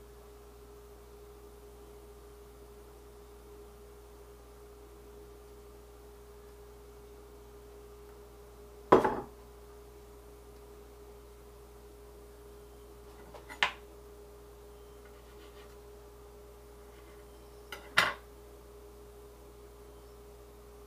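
A knife cutting through a sushi roll and knocking down onto a wooden cutting board three times, about four and a half seconds apart, over a steady hum.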